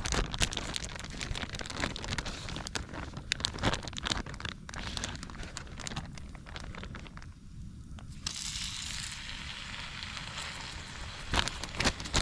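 Butter sizzling and crackling in a hot cast-iron pan, with a louder, brighter sizzle starting about eight seconds in and a few sharp knocks near the end.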